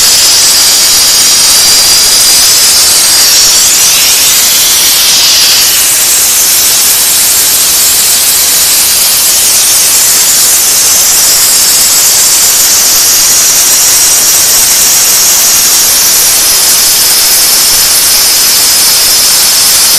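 Diesel-heated steam car wash machine running, with a loud steady hiss.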